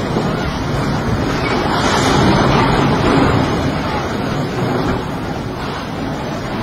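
Steady rushing noise of the fast-flowing, flood-swollen Marikina River, mixed with wind on the microphone, swelling a little about two seconds in.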